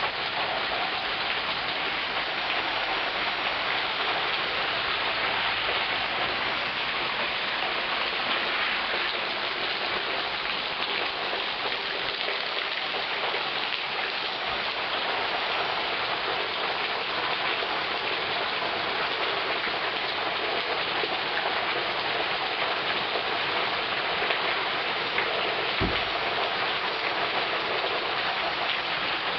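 Heavy rain pouring steadily, a dense, even hiss of falling drops. There is one brief low thump near the end.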